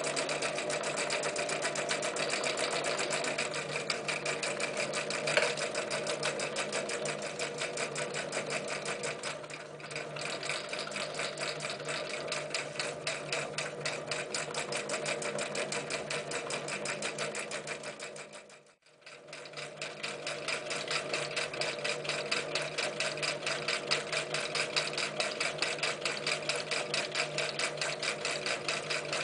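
Necchi Lydia 544 electric sewing machine sewing at speed through thick layers of denim: a steady motor hum under a rapid, even needle clatter. About two-thirds of the way through it stops abruptly, then starts again and builds back up to speed, now stitching through a folded strap of thick webbing.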